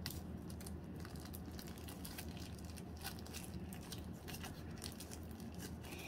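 Soft, irregular crinkling and small clicks of plastic packaging being worked open by hand to free a USB-C charging cable.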